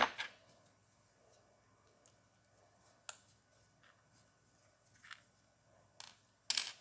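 Scattered light clicks and taps from small tools and shock air-can parts being handled while a seal is picked out: a sharp click at the start, a few faint ticks, and a short clatter near the end.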